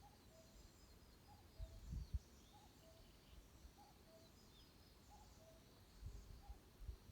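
Forest birds singing faintly: one bird repeats a low two-note call, high then lower, about once a second, over scattered high chirping from smaller birds. Low thumps come twice, around two seconds in and again near the end.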